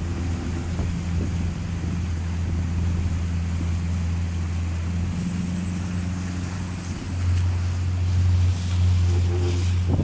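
Boat engine running steadily with a low hum, growing louder about seven seconds in, with wind and water noise around it.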